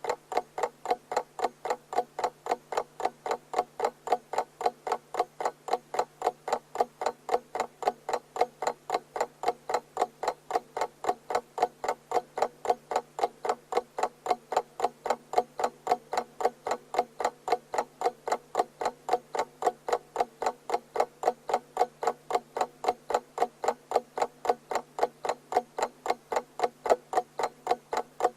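Mechanical alarm clock ticking at a steady, even rate, each tick a sharp click.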